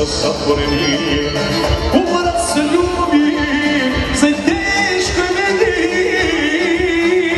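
Live Bosnian folk-pop music with a singer, played loud at a concert.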